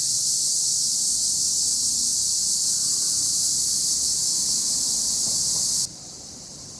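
Cicadas in the trees calling as a loud, steady, high-pitched buzzing chorus. Near the end the chorus cuts off suddenly, leaving a fainter, distant chorus.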